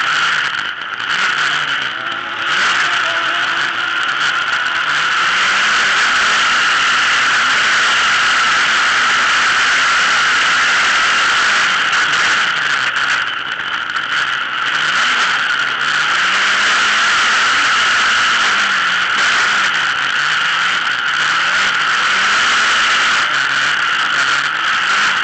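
Autocross buggy racing at speed, heard from a roof-mounted camera: a loud, steady rush of wind and engine noise, with the engine's note rising and falling underneath as the throttle comes on and off.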